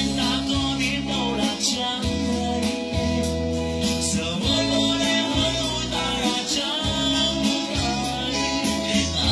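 Electric guitar playing a sustained lead melody, with a bass line and a steady beat underneath.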